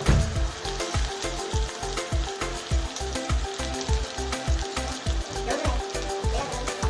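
Food frying and sizzling in a pan, under background music with a steady fast beat of about four thumps a second.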